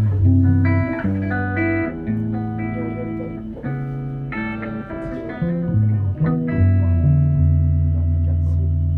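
Electric guitar and bass playing a run of held chords over low bass notes, the chord changing about every second and settling onto one long low note near the end. Recorded from inside a pocket.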